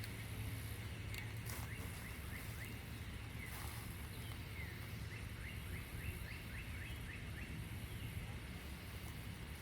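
Outdoor ambience with a small bird calling in quick runs of short high chirps, the fastest run about five seconds in, over a steady low rumble.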